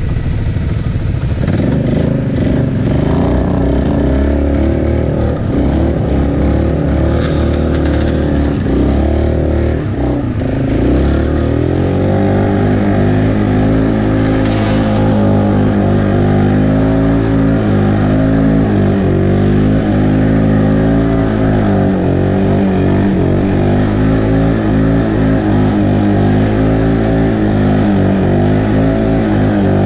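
Can-Am 400 XT ATV's single-cylinder engine running under throttle, the revs rising and falling unevenly for the first ten seconds or so, then holding fairly steady.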